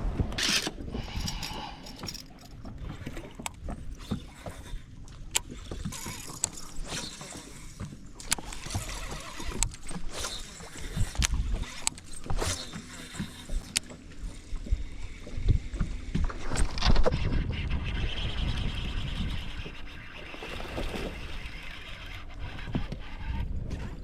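Handling noises aboard a fishing boat: scattered clicks and knocks over a steady low rumble of water and wind against the hull, with a louder knock about two-thirds of the way through.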